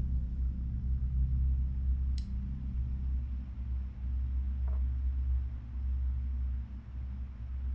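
A low, steady rumbling drone, with a single sharp click about two seconds in and a faint tick near the five-second mark.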